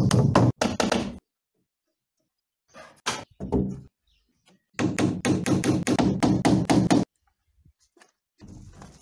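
A hammer striking wooden concrete-formwork boards in quick runs of about five or six blows a second, with a few separate knocks between the runs. Each run cuts off suddenly.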